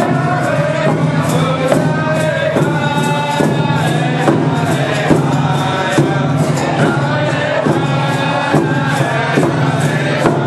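Round dance song: a group singing together in chorus over hand drums beating a steady rhythm.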